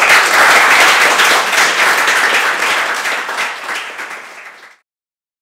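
Small audience applauding, dense clapping that eases off a little and then cuts off suddenly shortly before the end.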